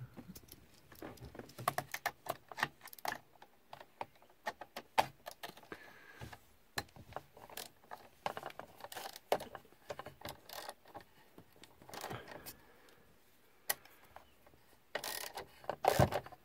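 Socket ratchet on an extension bar undoing a T30 screw behind the instrument cluster: irregular clicking of the ratchet and rattling of the tool in the socket, louder and busier near the end.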